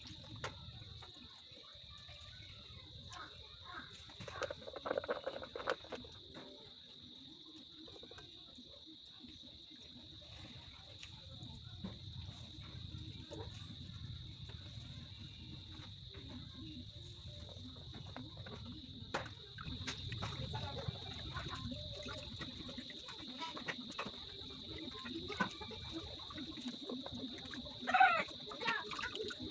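Steady high insect drone, like crickets, under faint wet handling sounds as shredded bamboo shoots are squeezed and drained by hand over a pot, with a few louder wet squelches near the end.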